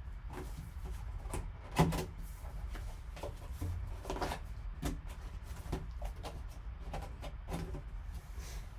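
A trading card box being opened and handled by hand, with irregular light clicks, scrapes and rustles of cardboard and plastic. One sharper knock comes about two seconds in.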